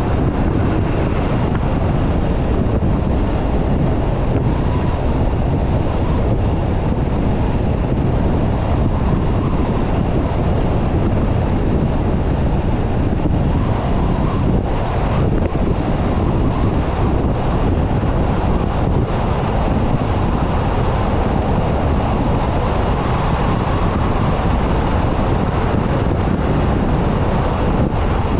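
Steady road and wind noise from a moving car, with wind rushing over the microphone.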